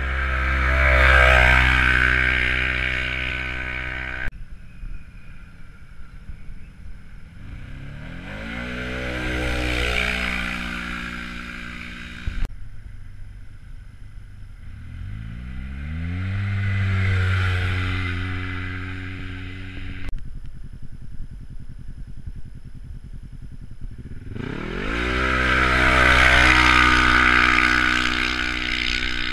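UTV side-by-side engines revving hard and accelerating away from a rally start line, four launches one after another. Each engine's pitch climbs as it pulls away, and each launch ends abruptly.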